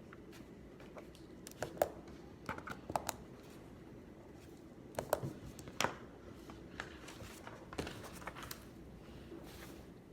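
Irregular small clicks, taps and rustles of things being handled on a study desk, over a steady low room hum.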